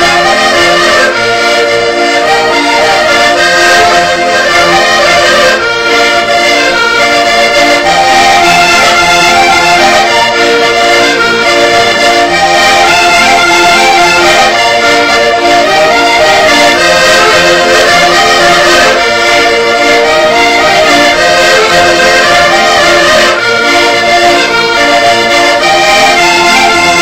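Three diatonic button accordions playing a rusga, a Portuguese folk dance tune, loud and without a break.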